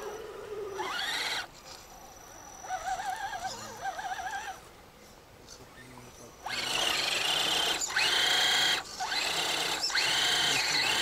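Electric motor and gearbox of a scale RC crawler truck whining under throttle as it churns through deep mud. A short rising whine comes about a second in, then a wavering whine as the wheels bite and slip. From around the middle come two long full-throttle bursts: the whine sweeps up and holds high over a hiss of spinning tyres and mud.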